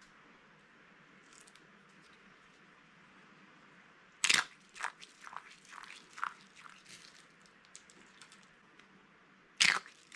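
Dry bar soap crunching as it is crushed: a loud sharp crack about four seconds in, then a run of smaller crunches, and another loud crack near the end. Before the first crack there is only faint hiss.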